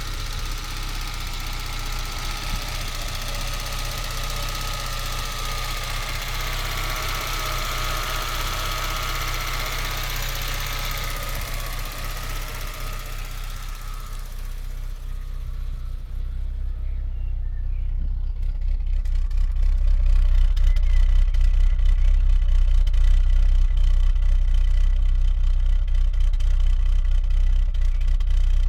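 Citroën Xantia Turbo CT's turbocharged petrol four-cylinder idling slightly rough. About halfway through, the sound turns to a louder, deeper rumble as the higher hiss drops away.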